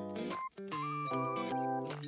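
Instrumental background music with sustained notes, broken by a very short gap about half a second in.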